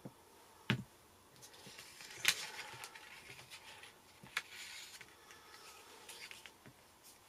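Paper and card being handled on a craft desk: sheets rustle and slide, with a few sharp taps as a clear acrylic stamp block is moved and set down, the loudest about two seconds in.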